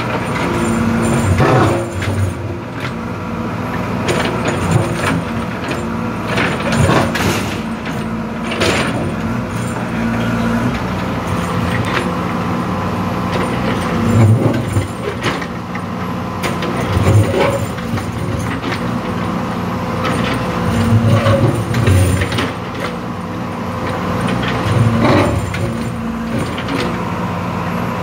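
JCB 3DX backhoe loader's Kirloskar diesel engine running steadily under load while the backhoe digs, its note rising in brief bursts several times as the hydraulics work. Occasional knocks come from the bucket working the soil.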